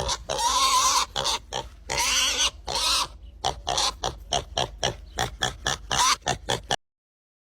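Pig squealing in two long, high squeals, then a quick run of short grunts, about three or four a second, that cuts off suddenly near the end.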